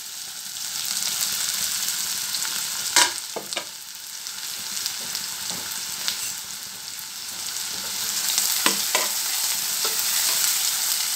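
Chopped onions sizzling in hot oil in an aluminium pressure cooker, a steady hiss. A few sharp knocks come about three seconds in and again near the end, as a spatula starts stirring the onions.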